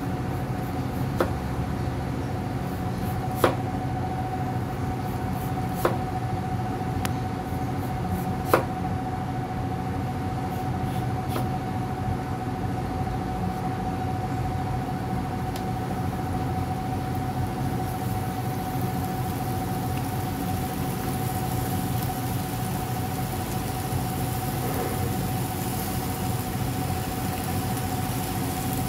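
A knife chopping through a potato onto a wooden cutting board: a few sharp knocks in the first ten seconds or so, over a steady hum with a constant tone. The frying hiss from the pan of chicken grows in the last third.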